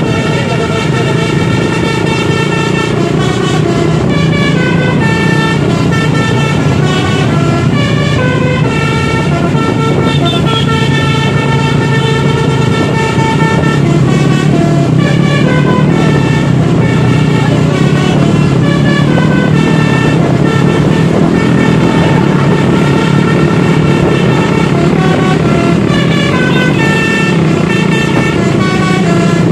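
A coach's basuri (telolet) musical air horn playing a long melody, its notes stepping up and down every half second or so, over the steady drone of engines.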